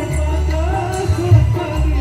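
Music with a singing voice over a heavy, pulsing bass beat and light percussion.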